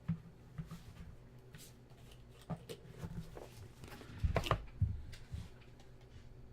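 Trading cards and their packaging being handled: scattered light clicks and rustles, with a louder clatter about four and a half seconds in.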